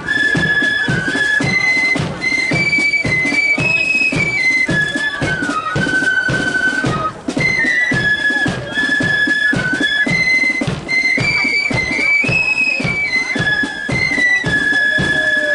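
Marching flute band playing a tune in unison on high-pitched flutes, the melody repeating in short phrases, over a steady beat of snare and bass drums.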